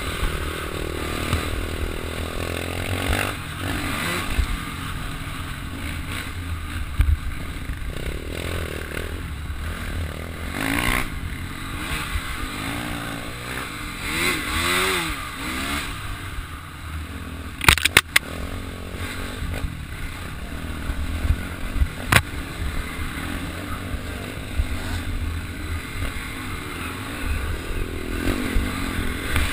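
Off-road dirt bike engine heard from on the bike, revving up and down as it rides a rough dirt trail, with wind buffeting the microphone. Sharp knocks from the bike hitting bumps, the loudest a little past halfway.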